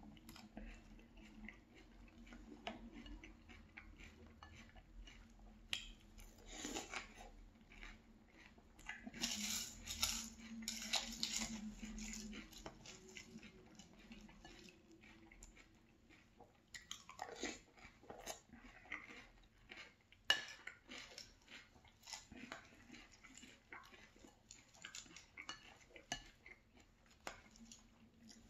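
Mouth-close chewing and crunching of frosted corn flakes soaked in strawberry milk, with a plastic spoon clinking and scraping against a glass bowl between bites. The crunching comes in bursts, loudest about a third of the way through.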